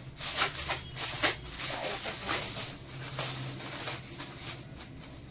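Gift wrapping being torn and crinkled by hand as a wrapped gift is pulled open: an irregular run of short rustles and rips.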